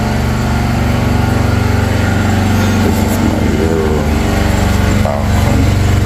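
Loud, steady drone of a running engine, the background noise from other activity going on around the building.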